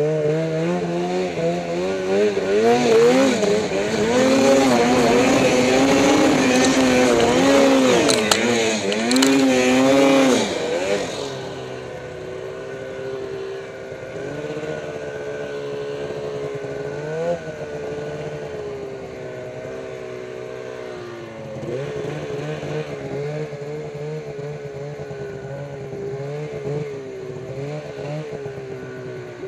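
Turbocharged Arctic Cat M8 snowmobile's two-stroke twin engine under load in deep powder. It revs hard for about the first ten seconds, the pitch rising and falling with the throttle. It then drops to a lower, steadier run with a few short throttle blips.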